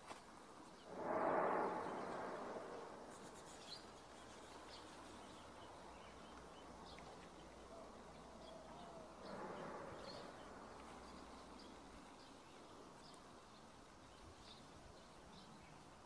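Quiet outdoor ambience with faint scattered bird chirps, and a broad rushing swell about a second in that fades away over several seconds; a weaker swell follows near the tenth second.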